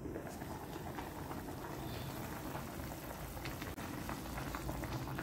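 Pork stew broth with cabbage boiling in a stainless steel pot, a steady bubbling with many small pops that grow busier about three seconds in.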